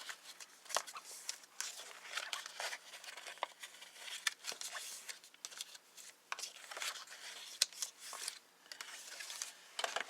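Cardstock envelope being scored and folded along its score lines by hand: irregular paper rustling and scraping with small crinkles and taps.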